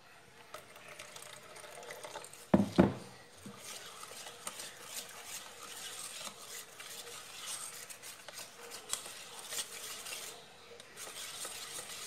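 Wire whisk stirring and scraping around a stainless steel bowl of batter as added water is worked in to thin it, with light metallic clinking. Two sharp knocks about two and a half seconds in are the loudest sounds.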